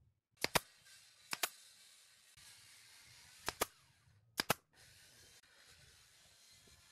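Brad nail gun firing four times into a pine frame, each shot a sharp double crack, with a faint hiss between shots.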